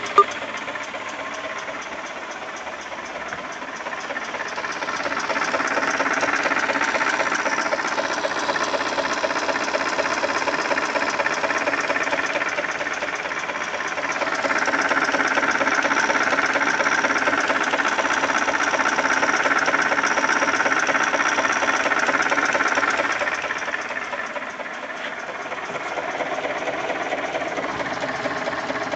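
ZMZ-402 four-cylinder petrol engine running with a fast repetitive knock whose cause the owner cannot identify. The revs come up about five seconds in and stay raised, with a short dip partway, until a little past twenty seconds, then fall back toward idle.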